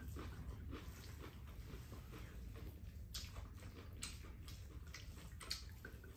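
Quiet eating sounds: spoons scraping and tapping against bowls and soft chewing, with a few faint clicks scattered through.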